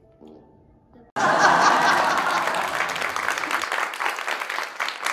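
Crowd applause that starts suddenly about a second in, loudest at first and easing off slightly.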